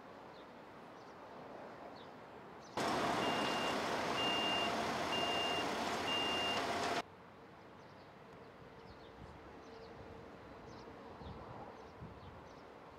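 A heavy truck's engine running with its reversing alarm beeping four times, about once a second, starting and stopping abruptly between about three and seven seconds in. Before and after, quiet outdoor ambience with faint bird chirps.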